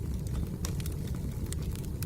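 Wood fire burning: a steady low rumble of flames with sharp, irregular crackles and pops from the burning logs.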